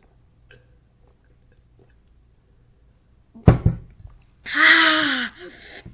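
A sudden thump about three and a half seconds in, then a loud, breathy vocal sound from a man that falls in pitch and lasts over a second.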